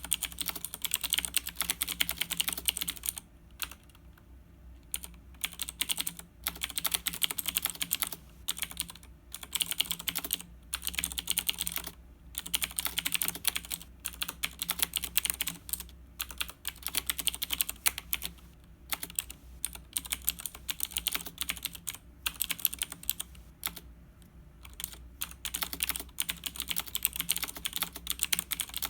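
Typing on a Razer BlackWidow 2013 mechanical keyboard: fast runs of clicky keystrokes broken by short pauses.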